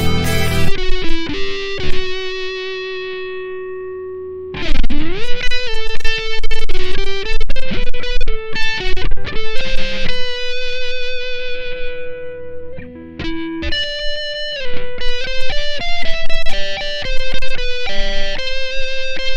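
Electric guitar played through a Blackstar ID:Core V3 amp and recorded over its USB output, which the owner finds bad-sounding. A single-note melody with long, slowly fading notes and a bend up about four and a half seconds in.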